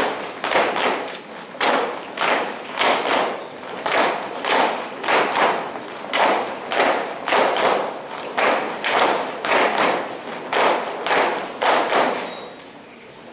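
Folk dancers stamping their feet in unison on a hard floor, a steady rhythm of about two stamps a second that stops about twelve seconds in.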